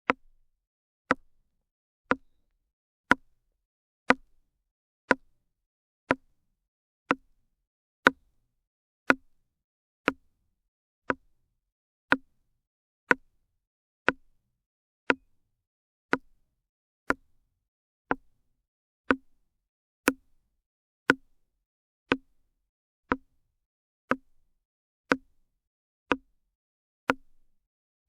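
Axe chopping into a tree: single short strikes into wood at a steady pace of about one a second.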